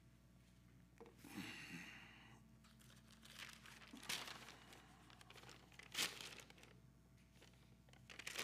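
Faint rustling and crinkling of paper as sheets of notes are handled and turned, in a few separate bursts: one about a second in, more around three to four seconds, and a sharper one about six seconds in.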